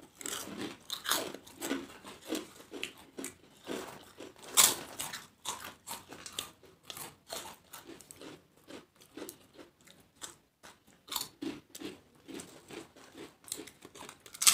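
Two people biting and chewing crisp fried papad: an irregular run of sharp crunches, one of them loudest about four and a half seconds in.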